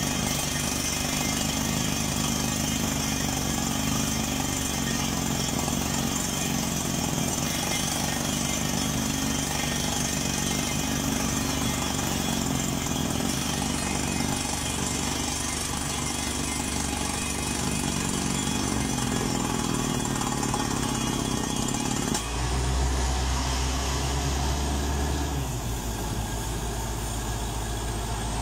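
Truck-mounted down-the-hole water well drilling rig at work: the air hammer pounding rock while compressed air from the ELGi 1100 cfm compressor blasts cuttings and dust out of the borehole, over the steady running of the rig's engines. About 22 seconds in the hiss of the air blast suddenly drops away, leaving a deeper steady engine hum.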